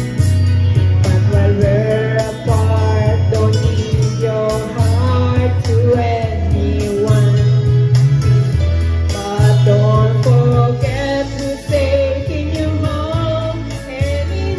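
A woman singing into a handheld microphone over a backing track, with a sung melody above sustained bass notes that change every second or so.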